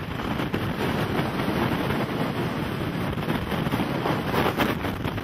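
Strong wind from a nearby tornado blowing across the microphone: a steady rushing noise that rises and falls a little.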